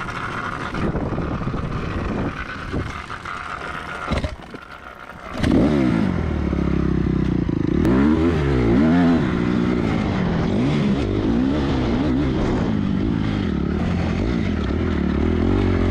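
Honda dirt bike engine being ridden on a dirt track, running lighter at first, then loud from about five seconds in, its pitch rising and falling over and over as the throttle is opened and closed through the gears.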